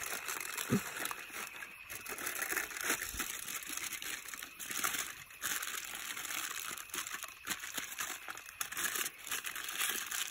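Aluminium foil crinkling and rustling as it is handled and folded around food to make a cooking packet.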